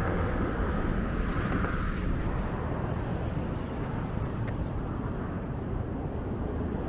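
Steady low rumble of vehicle noise, dipping slightly in the middle.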